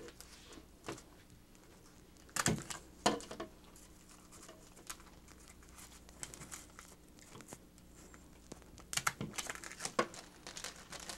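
Hand stapler driving staples through thin cardboard: a few sharp clicks, the two loudest about two and a half and three seconds in and more near the end, with light rustling of the cardboard between.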